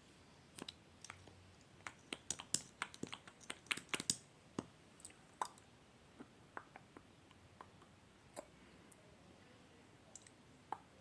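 Scattered small, sharp clicks and crackles from hands handling small objects: a dense run of them from about two to four and a half seconds in, then a few spaced-out ones.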